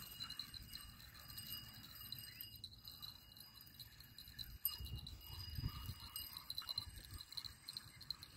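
Faint, steady high-pitched chirping of insects, with a low rumble of wind on the microphone from about five to six seconds in.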